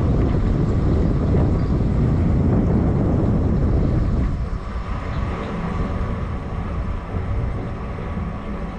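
Loud steady rushing and rumbling from a riverside water installation, the sound the speaker pointed out by asking whether it could be heard. It eases a little about four seconds in.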